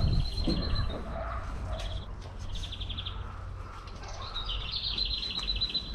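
A small songbird singing short, rapid high trills, several in a row with brief pauses between them, over a steady low rumble.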